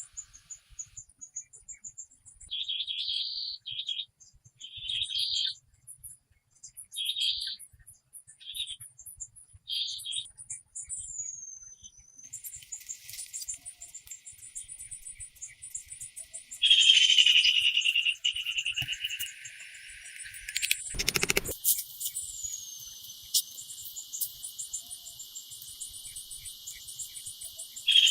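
Outdoor nature sounds: birds chirping and whistling, with insects calling in short repeated trills that give way to a steady drone. A single sharp knock sounds about three-quarters of the way through.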